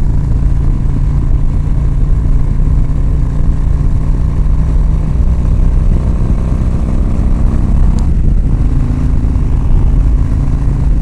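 Harley-Davidson V-twin motorcycle engine running steadily on a test ride, with a brief click about eight seconds in.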